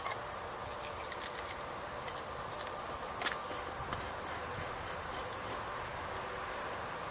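Steady, high-pitched chorus of insects, with one faint click about three seconds in.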